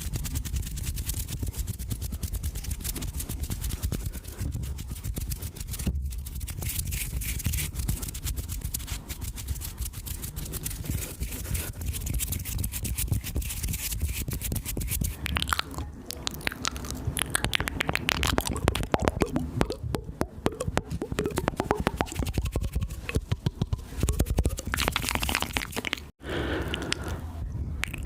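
Close-miked ASMR mouth sounds: a dense, steady run of rapid wet clicks and smacks, broken by a brief drop-out near the end.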